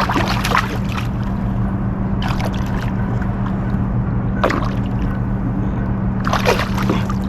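A hooked bass splashing and thrashing at the water's surface in several short bursts as it is drawn in, over a steady low hum.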